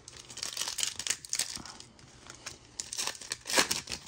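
Foil wrapper of a Donruss Optic football card pack being torn open and crinkled in two spells, with a short lull about halfway and the loudest crinkle near the end.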